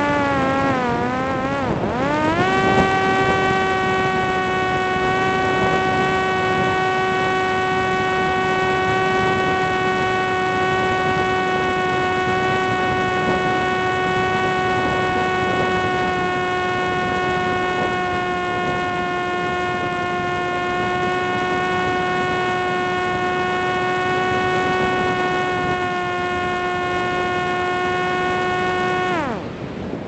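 A steady motor-like whine with many overtones over rushing wind noise: it wavers up and down in pitch for the first couple of seconds, then holds one pitch, and glides down and stops near the end.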